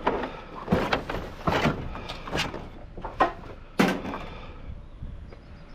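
A string of about five knocks and bumps with scraping between them, from heavy scrap being shifted and loaded by hand.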